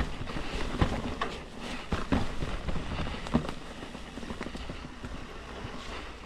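Commencal Meta mountain bike riding over rough, rocky trail: steady rolling noise with a string of sharp knocks and clatters as it hits rocks and roots, the loudest in the first three seconds or so.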